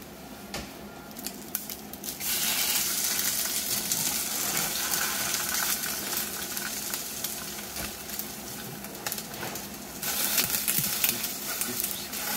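Fish-paste satsuma-age patties sizzling in a lightly oiled nonstick frying pan. The sizzle comes in strongly about two seconds in, eases off, and grows louder again near the end as a silicone spatula presses the patties down, with a few light clicks of the spatula.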